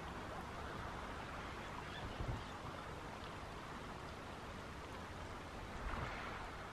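Soft, steady wash of the sea on a rocky, pebbly shore, with wind rumbling on the microphone twice.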